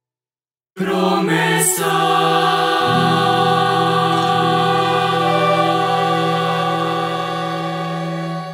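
Mixed youth choir with violins, cello and guitar coming in together after a brief silence and holding one long sustained chord, a low bass note joining a couple of seconds in; the chord fades out at the very end.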